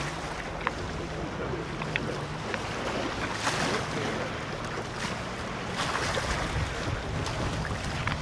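Jet ski engine running steadily, with wind buffeting the microphone and choppy water.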